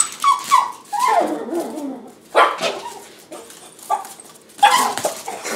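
A dog whining, yipping and barking in short excited bursts, worked up by a laser pointer dot.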